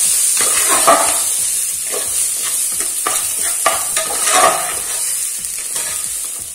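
Spoon stirring and scraping basmati rice through hot ghee in an aluminium pressure cooker, in repeated strokes over a steady sizzle: the rice is being sautéed in the fat before the water goes in.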